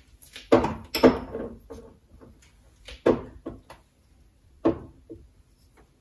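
Spice jars and containers being picked up and set down in a kitchen cupboard: a run of knocks and clunks, strongest about half a second and a second in, then single knocks around three seconds and near five seconds.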